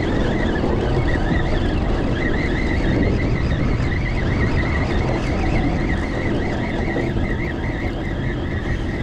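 Fishing reel being wound in as a hooked fish is brought up, with a whirring that wavers in pitch in a steady rhythm, over constant wind and water noise.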